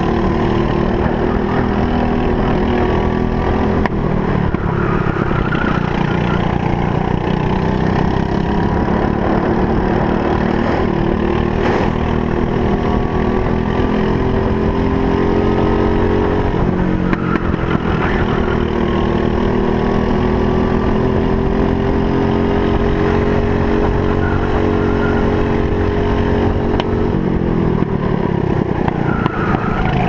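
Briggs & Stratton LO206 single-cylinder four-stroke kart engine running hard at racing speed. Its pitch climbs slowly and dips several times as the throttle is held and lifted for corners, then drops sharply about three seconds before the end.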